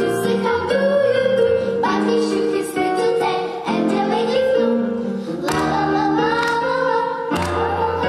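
A quartet of young girls singing a children's song together, with instrumental accompaniment.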